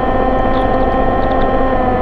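Engine running steadily with an even hum at one unchanging pitch, with a few faint high chirps about half a second to a second and a half in.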